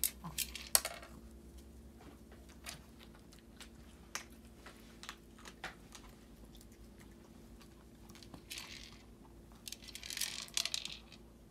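Hard plastic clicks and knocks as a small dog paws the barrel of a treat-dispensing toy, spinning it on its chopstick axle, with two longer rustling bursts near the end.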